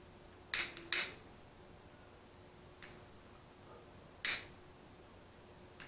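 Handheld lighter clicking as it is struck to burn off the tag end of fishing line: two strikes close together about half a second apart near the start, a faint tick near the middle, and one more strike past four seconds.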